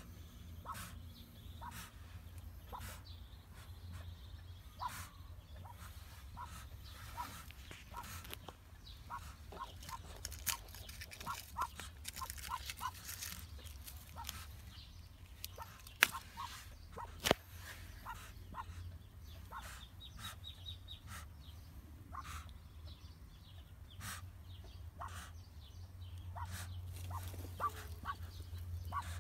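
Newly hatched ducklings peeping softly under the brooding hen: many short, faint calls in loose clusters, over a low steady hum, with two sharp clicks a little past halfway.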